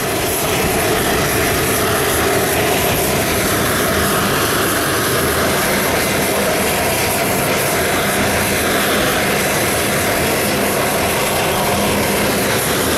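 Boeing C-17A Globemaster III's Pratt & Whitney F117 turbofan engines running steadily on the ramp: a loud, even jet rush with a high whine.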